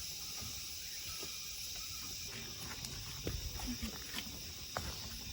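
Steady high-pitched buzz of cicadas in the forest, with scattered light clicks and scuffs through the second half.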